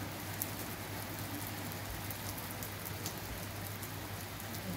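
Heavy rain pouring down on a wet road: a steady hiss, with a few sharper drop ticks about half a second and three seconds in.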